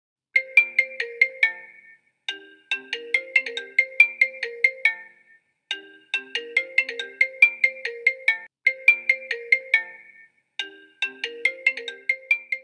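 Mobile phone ringtone: a short melody of quick, bright notes, repeated four times with brief gaps between the phrases.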